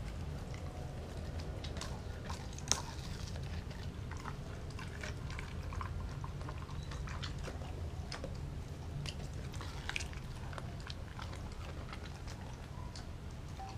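German Shepherd mix eating raw and dehydrated dog food from a glass bowl: steady chewing and biting with irregular crunches, and one sharper crack about three seconds in.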